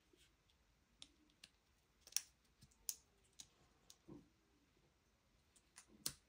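Faint, scattered light clicks and taps of small plastic parts being handled, about eight in all, the sharpest a little over two seconds in, with one duller knock around four seconds in.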